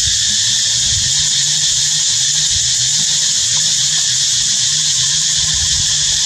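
A steady, high-pitched insect chorus drones without a break, with a faint low wavering hum beneath it.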